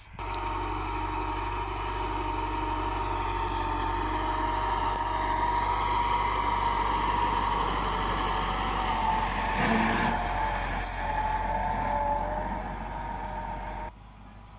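Massey Ferguson 375 tractor's diesel engine running steadily under load as it tows a laser land leveler's scraper bucket through the soil. The engine note dips briefly about ten seconds in. The sound starts abruptly and cuts off sharply near the end.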